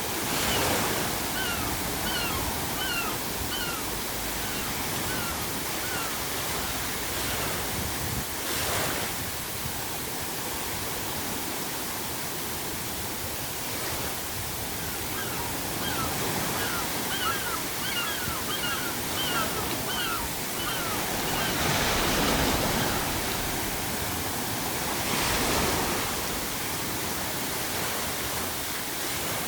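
Ocean surf washing steadily, with waves breaking four times. Seagulls give two runs of short, repeated cries, a few early on and a longer series midway.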